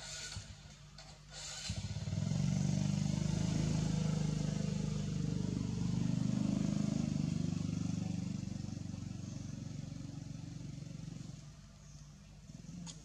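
A motor vehicle engine running close by, starting about two seconds in, holding steady and fading out shortly before the end.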